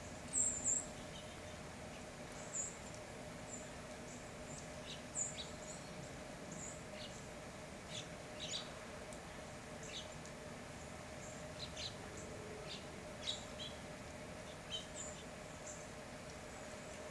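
Small songbirds giving short, high chip calls at irregular intervals, over a faint steady hum.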